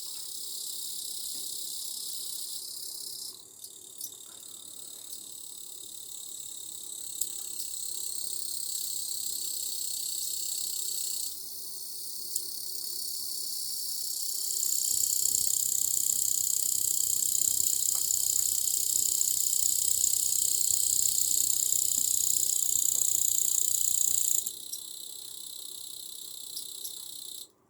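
An insect's continuous high-pitched shrill song, like a cricket's, unbroken throughout; it gets louder about halfway through and drops back a few seconds before the end.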